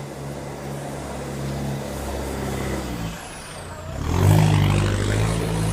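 City street traffic: a heavy vehicle's engine runs close by with a steady low hum. About four seconds in it swells louder, just after a brief high falling whistle.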